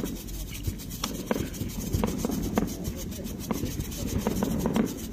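Handheld colour-waterfall firework sticks with strobe burning, a continuous sputtering crackle broken by sharp irregular pops, two or three a second.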